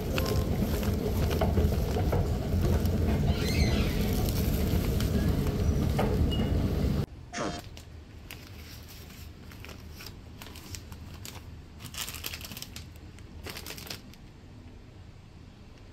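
A steady low rumble of background noise, which drops away abruptly about seven seconds in. Plastic ziplock bags of dried herbs then crinkle and rustle in short crackles as they are handled.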